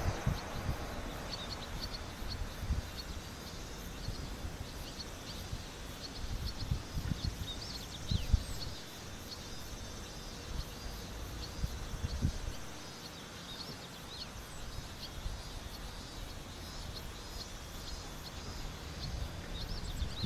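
Outdoor summer ambience: a steady scatter of short, high chirps from insects, with irregular low rumbles of wind on the microphone, strongest about eight and twelve seconds in.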